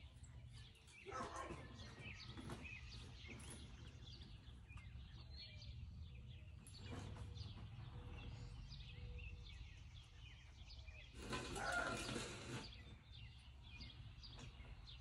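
Faint outdoor ambience: a steady low rumble with scattered bird chirps. A brief, louder rush of noise comes about three quarters of the way through.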